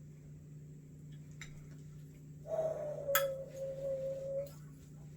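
A fork clinking and scraping in a bowl as instant ramen noodles are mixed with their sauce. A few light clicks come first, then a steady ringing tone of about two seconds from the middle on.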